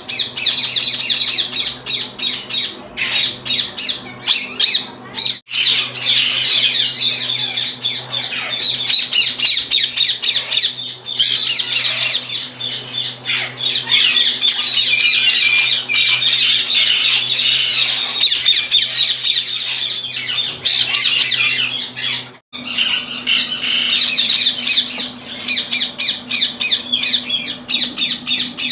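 A flock of Indian ringneck parakeets squawking together, a dense stream of shrill, rapid calls that breaks off twice for a moment.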